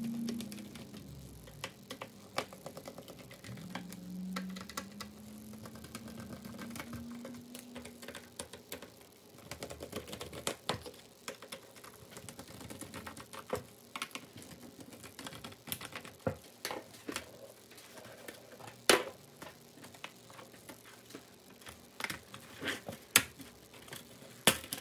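Small screwdriver backing out the bottom-cover screws of a Dell Precision 7530 laptop: scattered light clicks and ticks of the tip and loosened screws against the case. Near the end come a few sharper clicks as the bottom cover is lifted off.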